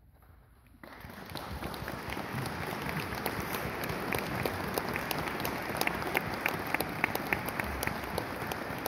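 Audience applauding, breaking out suddenly about a second in and swelling, with single claps standing out.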